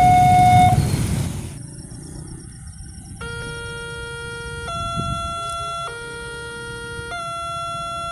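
Railway level-crossing warning siren alternating between two tones, cut off at about one and a half seconds. About three seconds in, another crossing's electronic warning siren starts, quieter, alternating between two chords of several tones that switch about every second.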